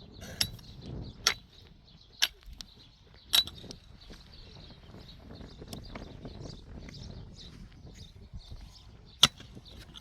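Sharp knocks at irregular intervals, about six in ten seconds, the loudest near the start and one late on, over faint low rustling.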